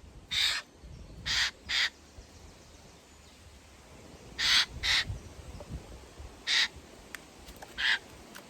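Eurasian jays giving short, harsh rasping calls, about seven in all, several in quick pairs.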